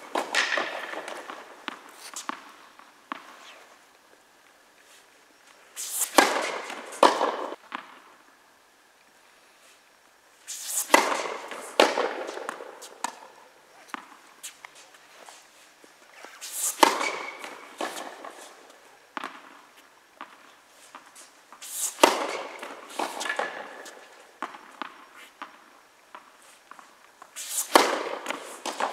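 Tennis balls struck by rackets and bouncing on an indoor hard court. Each exchange is a quick run of sharp pops ringing through the hall, coming about every five to six seconds.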